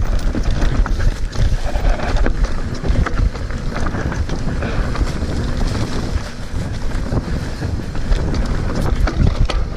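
Wind buffeting the microphone over a mountain bike rolling fast down a rough dirt singletrack: tyre rumble with frequent rattles and knocks from the bike on the bumps.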